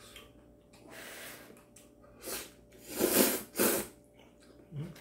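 A person slurping kalguksu noodles from a bowl: a short slurp about two seconds in, then two loud slurps close together around three seconds in.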